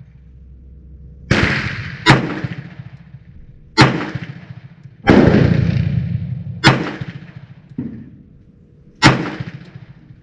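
Enfield No. 2 Mk I** .38 revolver firing single shots one after another, a second or two apart. Each sharp crack trails off in an echo, and one shot near two-thirds of the way through is fainter than the rest.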